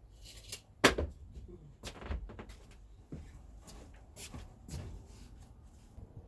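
Knocks and clatters of objects being picked up and set down, with one sharp knock just under a second in the loudest, followed by several smaller knocks.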